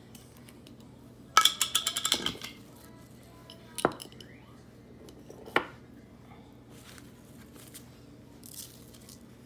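A small container clinking and rattling in quick taps for about a second, as powder is shaken out of it, then two single sharp clicks a couple of seconds apart.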